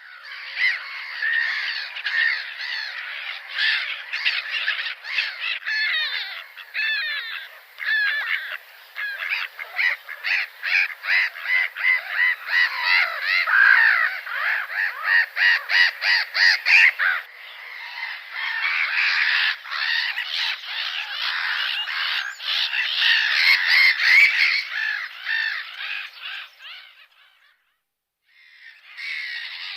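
Many gulls calling at once, their calls overlapping and coming in quick runs. They fade out near the end, and after a short gap the calling starts again.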